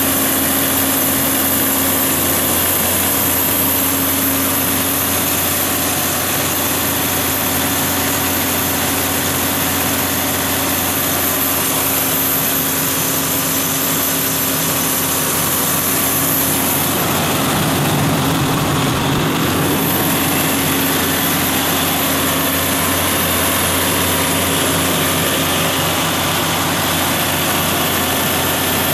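Cummins QSM11-G4 inline-six diesel engine of a 300 kW generator set running at a steady speed, a loud, even drone.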